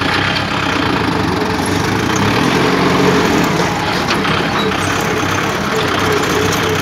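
Kubota tractor's diesel engine running steadily as the tractor drives along, heard up close from on board the tractor.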